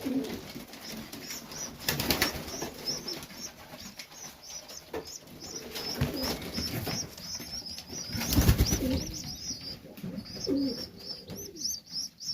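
Serbian highflyer pigeons in a loft: a steady run of short, high peeping calls, two or three a second, over low cooing, with bursts of wing flapping about two seconds in and again a little past the middle.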